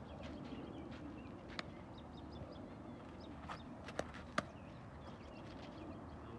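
A baseball slapping into a leather glove at first base: two sharp pops about four seconds in, the second the louder, with a fainter pop earlier on. Faint bird chirps run over a steady low outdoor background.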